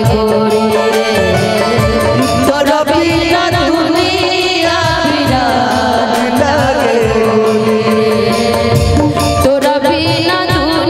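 Live Bhojpuri stage song: a woman and a man singing into microphones over amplified instrumental accompaniment with a steady drum rhythm.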